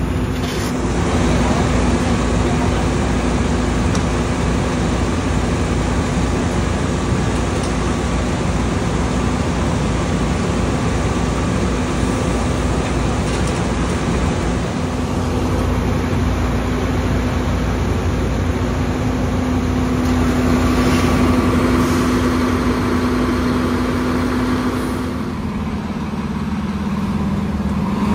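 Heavy diesel truck engines idling: a steady, unbroken low hum.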